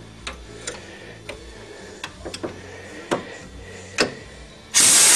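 Scattered light metallic clicks as the strut's clevis bolts are worked by hand, then near the end a pneumatic wrench starts and runs in a short, loud burst.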